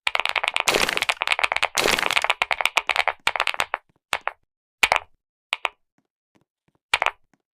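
Clicky mechanical keyboard keys being pressed in fast, dense runs of sharp clicks for about four seconds, then a few short bursts of clicks spaced out toward the end.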